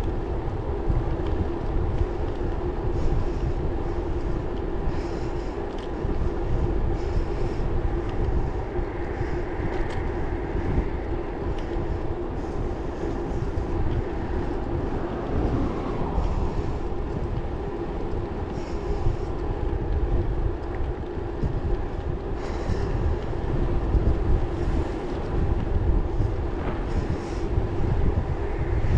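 Electric bike cruising steadily on asphalt: wind rumbling on the microphone over tyre noise, with a steady motor hum underneath.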